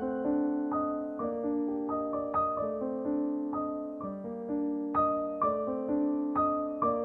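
Background piano music: a gentle melody of single notes struck two or three times a second over held lower notes.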